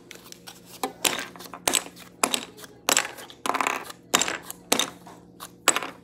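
Wooden clothespins clicking and clattering against each other and the tabletop as they are handled: a quick, irregular series of sharp clicks.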